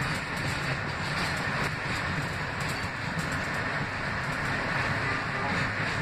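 Running noise inside an R160B subway car at speed: steady wheel-on-rail rumble with occasional faint clicks.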